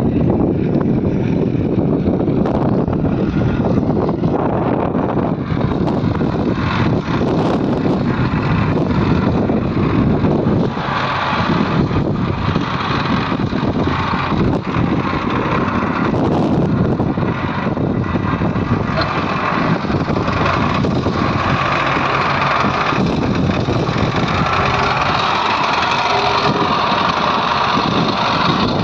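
Diesel engines of a backhoe loader and tractors running steadily at a worksite, with scattered short knocks.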